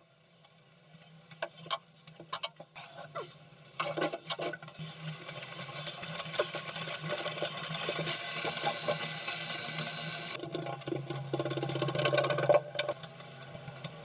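Paintbrush dabbing and stroking resin into fibreglass cloth, with the cloth rustling, over a steady low hum. Scattered light taps and rustles come first, then a denser scratchy brushing through the middle.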